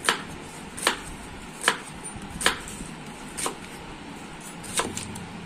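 A wide-bladed kitchen knife chopping a red onion on a wooden cutting board: six sharp chops, about one a second, with a longer pause before the last.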